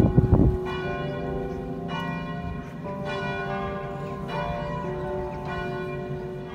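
Church bells ringing, a new strike about once a second, each note ringing on under the next. A brief low rumble sounds at the very start.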